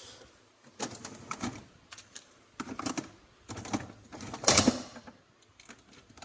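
Objects being handled in a small room: a run of irregular clicks, knocks and short scrapes, the loudest burst about four and a half seconds in.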